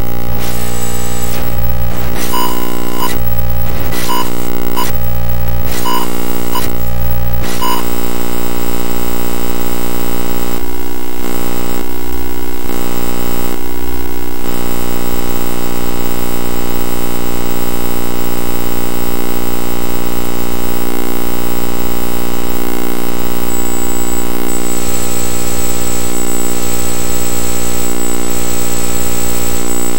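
Harsh electronic buzzing drone from a circuit-bent Sony video sketchpad toy, its colour-channel video signals heard directly as audio and modulated by oscillators. It pulses roughly once a second for the first several seconds, then settles into a steady, dense drone, and a high whine joins late on.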